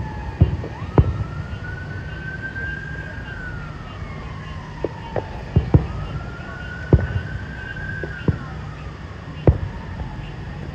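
Aerial fireworks shells bursting in a string of sharp, irregular bangs, the loudest a little after the start, about seven seconds in and near the end. Under them an emergency siren wails, its pitch rising and falling slowly twice.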